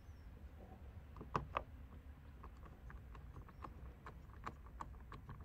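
Hand screwdriver turning out a screw in the plastic window-switch recess of a car door trim: a run of faint, light clicks, two or three a second, with two louder clicks about a second and a half in.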